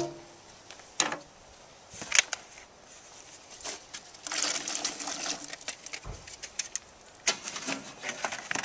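Scattered knocks and clicks of utensils and a bowl against a cast-iron Dutch oven. About four seconds in, a second-long rush of noise as diced potatoes are tipped from a bowl into the thick cream chowder base.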